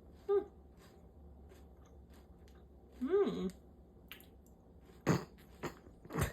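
A person chewing a bite of protein bar topped with hot fudge, with faint small mouth clicks, a short hummed "mm" about a third of a second in, and a longer rising-then-falling "mmm" around three seconds in. Three sharper mouth noises come near the end.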